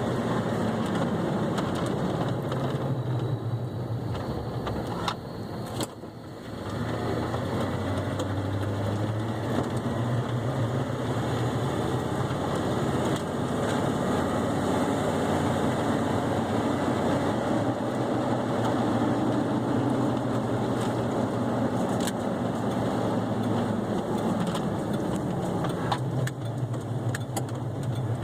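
Ford F-150 pickup driving: steady engine and road noise, dropping briefly about six seconds in and then building again.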